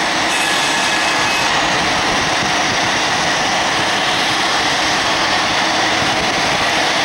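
Bombardier CRJ-200ER's twin GE CF34 turbofans at climb power after takeoff: a steady, loud rushing jet noise with a faint high whine over it.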